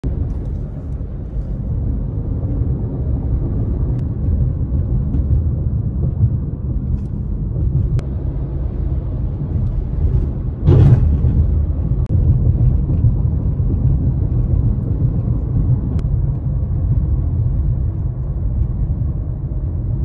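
Steady low rumble of road and engine noise inside a moving car's cabin. About halfway through there is a brief, louder rushing noise.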